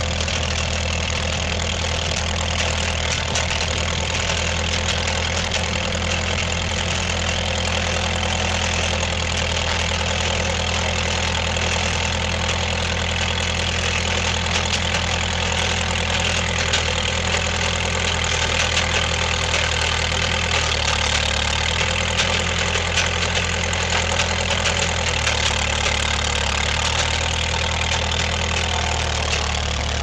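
Skid steer engine running steadily close by, its note shifting slightly a couple of times in the second half as the loader works.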